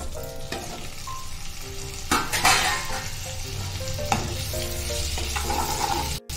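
Boiled potato chunks sizzling as they fry in hot oil in a kadai, stirred with a wooden spatula; the sizzling swells about two seconds in. The sound cuts off abruptly just before the end.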